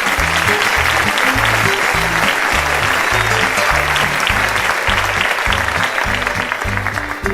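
Audience clapping over upbeat music with a plucked bass line; the applause stops abruptly near the end while the music carries on.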